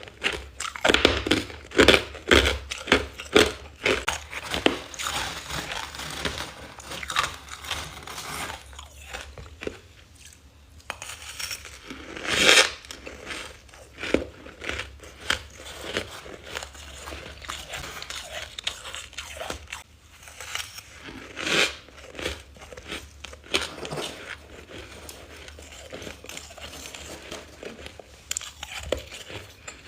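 A person biting and chewing freezer frost ice, crunching loudly. It starts with a quick run of bites in the first few seconds, then turns to slower chewing with a few loud single crunches.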